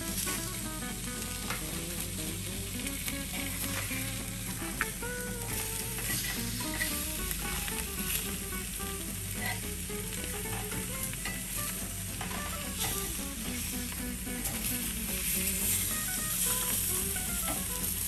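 Whole fish sizzling steadily on an old tawa spread with salt, cooking in their own fat with no oil, with a few scrapes and clicks of a metal spoon as the fish are turned.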